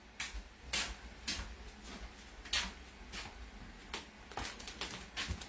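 Rolling pin working cookie dough on a silicone mat over a wooden table, with a few light, irregular clicks and knocks as it rolls and bumps.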